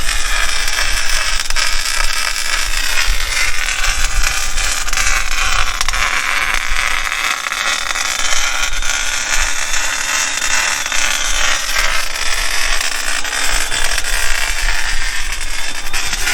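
Welding arc crackling and hissing steadily as a steel rear bumper is welded onto the Jeep frame.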